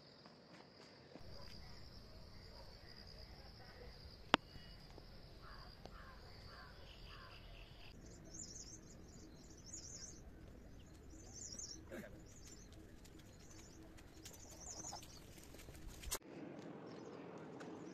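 Birds chirping and calling in woodland. Short repeated calls sound over a steady high buzz in the first half, then bursts of high chirps in the second half, with a low rumble throughout. A single sharp click comes about four seconds in.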